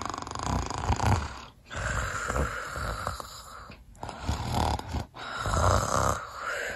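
Snoring: about four drawn-out snores in a row, separated by short breaks.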